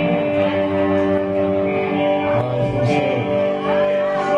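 A live band playing, with electric and acoustic guitars ringing out long, held chords.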